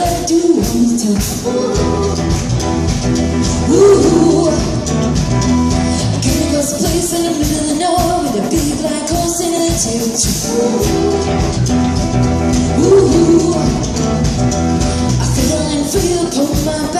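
A live duo playing a cover song: a band with instruments and a singing voice.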